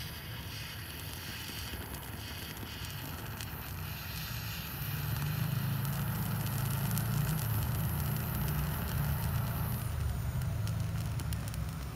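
Butane jet torch burning against shimpaku juniper foliage: a steady low roar that grows louder about five seconds in, with scattered crackles as the needles catch, most of them near the end.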